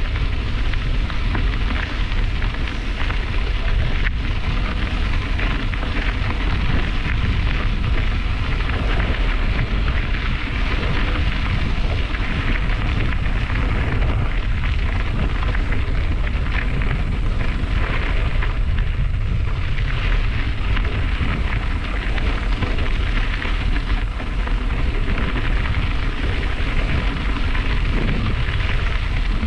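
Bicycle tyres rolling over a gravel trail, with wind rushing over the camera's microphone from riding speed. The noise is steady, with no break.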